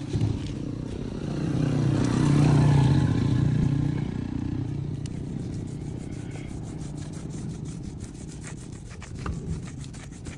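A cloth rubbing a motorcycle tyre in repeated strokes, wiping on tyre blackener, through the second half. In the first few seconds a passing vehicle's engine swells and fades, the loudest sound.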